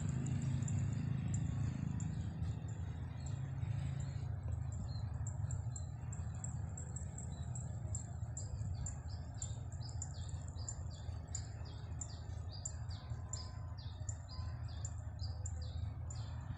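Small bird chirping a quick run of short, high notes, each falling in pitch, several a second, starting a few seconds in, over a steady low rumble and a thin high tone.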